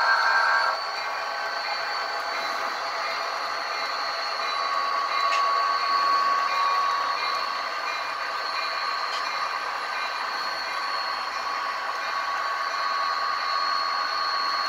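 Model Amtrak passenger train led by F40PH diesel locomotives running along the layout track: a steady rolling rattle of wheels on rail with a thin, steady high whine. A held chord of tones cuts off just under a second in.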